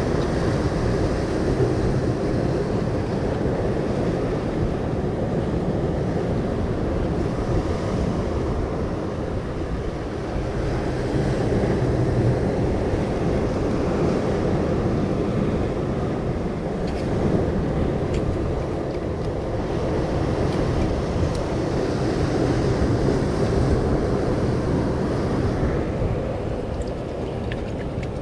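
Sea surf washing against the rocks, with wind buffeting the microphone: a steady rushing that swells and eases every few seconds.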